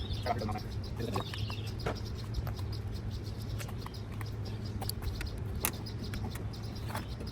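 Scattered small clicks and ticks of a screwdriver working plastic pull-tab clips and Phillips screws out of a car's front bumper cover, over a steady low hum.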